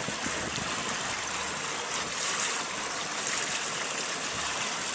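Steady rushing of water along the hull of a yacht under way.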